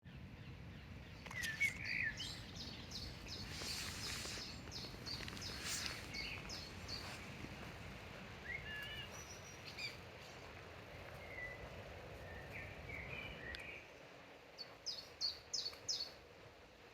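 Several songbirds singing in a dawn chorus: quick series of repeated high notes and short warbling phrases, over a low, even background rumble that drops away about fourteen seconds in.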